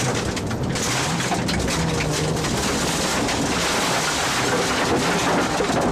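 Rally car driven hard on a gravel stage, heard inside the cabin: the engine runs under load beneath a dense hiss of tyre and road noise, with loose gravel clattering against the car's underside.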